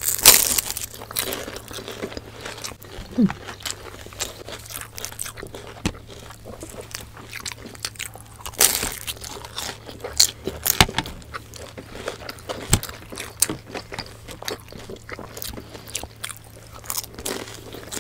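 Crunchy bites and chewing of crispy fried lumpia (Filipino spring rolls), the wrapper crackling. One loud crunchy bite comes right at the start, with more sharp crunches through the rest, the biggest about 9 and 11 seconds in.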